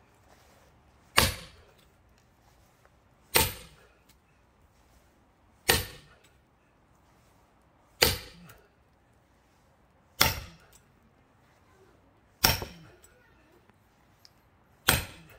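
Sledgehammer blows on the backs of axes driven into a pine log as splitting wedges: seven heavy strikes about every two and a quarter seconds, each a sharp crack with a short ring.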